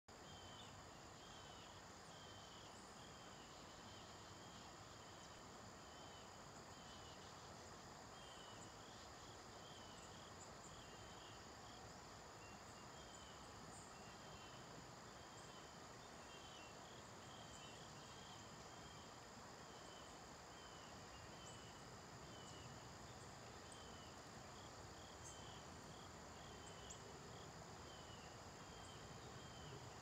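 Faint natural outdoor ambience: insects trilling steadily at a high pitch, with short chirps repeating every half second or so over a soft, even hiss.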